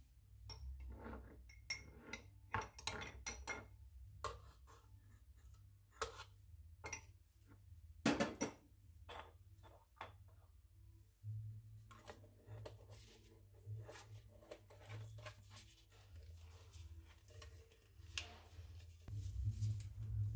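Scattered clinks and knocks of kitchen dishes and utensils being handled, irregular and unhurried, over a low rumble.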